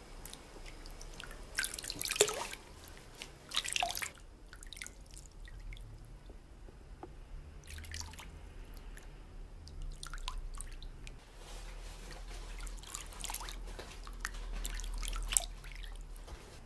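Water dripping and splashing in a shallow plastic tub as a hand scoops it up and pours it over a kitten's head, in short irregular bursts.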